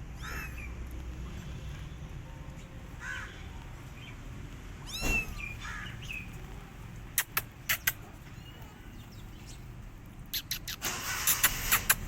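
Young kittens meowing, about four short high calls in the first half. Sharp clicks follow, a few around the middle and a dense run near the end, the loudest sounds here, over a steady low rumble.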